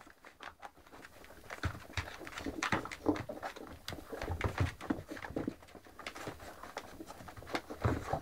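Two-week-old Great Dane puppies making small squeaks and whimpers amid irregular soft taps and shuffling as they move about.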